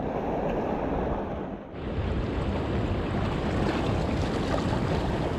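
Sea waves washing over the rocks at the shoreline, with wind on the microphone, a steady rushing that dips briefly a little under two seconds in.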